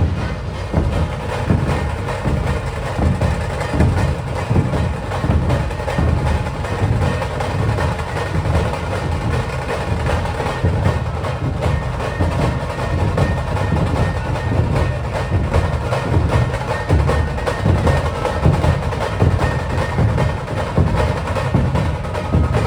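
Maharashtrian dhol-tasha ensemble playing a continuous fast rhythm: deep dhol barrel drums beating under rapid, dense strokes of the tasha drums.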